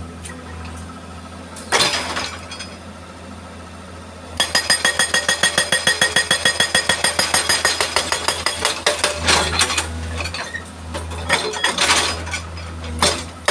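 Hydraulic rock breaker on a Tata Hitachi excavator hammering a boulder: after the diesel engine idles and a single clank, a fast, even rattle of metallic blows starts about four seconds in. It eases briefly about two-thirds of the way through, then resumes.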